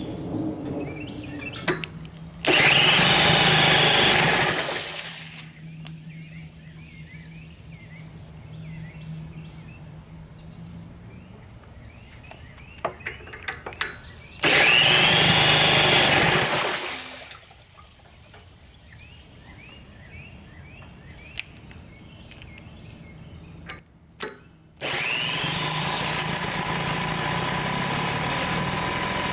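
A 1970 Western Auto 5 hp two-stroke outboard motor being spun over with a cordless drill to start it, in two short bursts of cranking about twelve seconds apart. About 25 seconds in it catches and runs steadily, its carburettor float and needle freshly adjusted to cure in-and-out running.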